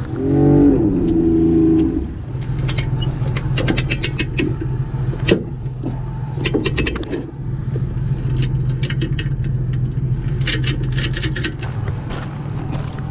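A motor running with a steady low hum, louder with a higher whine in the first two seconds, while metal clinks and rattles come again and again.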